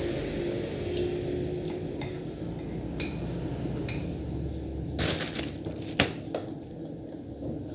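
Light clinks and clatter of tableware against a plate during a meal: a few small clicks, a cluster of clatter about five seconds in and one sharp clink about a second later, over a steady low rumble.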